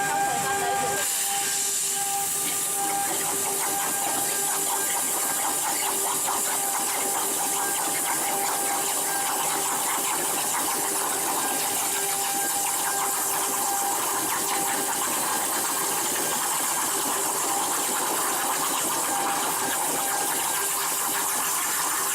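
CNC plasma cutting torch cutting metal: a loud, steady hiss with a constant tone running under it.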